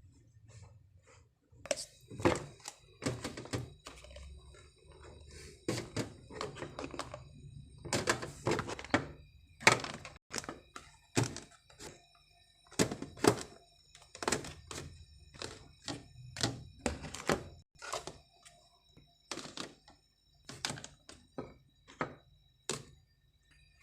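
Irregular thunks and knocks, about one a second, like objects being handled and set down in a small room.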